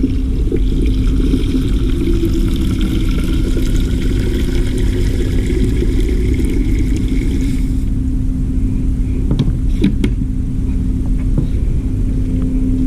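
A machine running steadily: a low rumble with a constant hum, and a fainter hiss over it for the first eight seconds or so.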